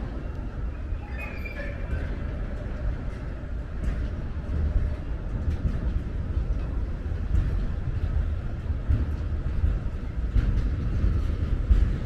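Freight train of tank wagons rolling past close by: a steady low rumble of wheels on rail that grows a little louder, with occasional sharp clicks.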